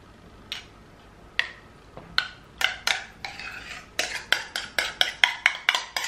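Metal spoon scraping and knocking against a ceramic bowl as thick blended rice paste is spooned out of it: a few scattered clicks at first, then quick regular strokes about four a second from about four seconds in.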